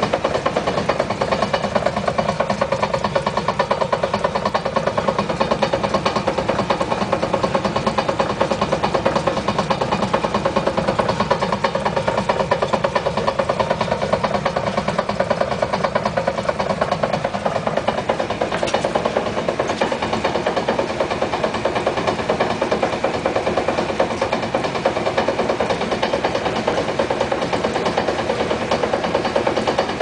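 1956 Chrysler New Yorker's 354 Hemi V8 idling in neutral with the wheels off the ground, over a steady rhythmic 'dong dong dong' knock from the rear axle and drive shaft turning freely. The knocking comes only while the brakes are off, which points to the driveline rather than the engine.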